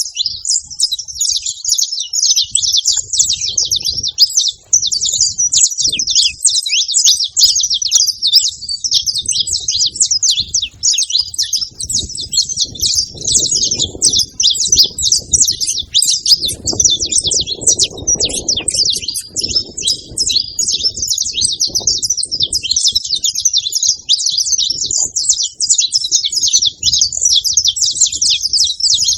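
A flock of saffron finches chirping and singing together at a feeding spot: a dense, unbroken chatter of many overlapping high chirps.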